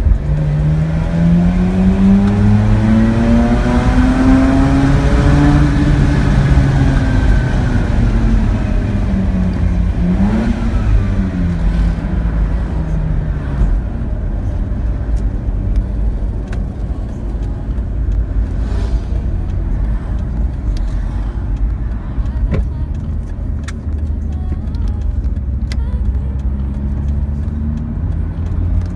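Mazda RX-8's 13B twin-rotor rotary engine pulling through a gear, its pitch rising for about six seconds before easing off. About ten seconds in there is a short rev blip and fall. It then settles into a steady low drone with road noise, and the pitch climbs again near the end.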